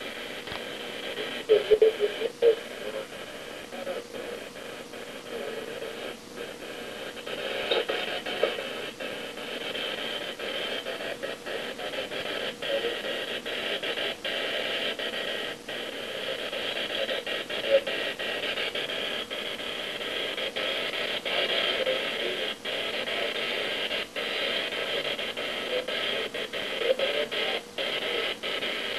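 Electric hair clippers running steadily while cutting a man's hair, with frequent short clicks and a few louder knocks near the start.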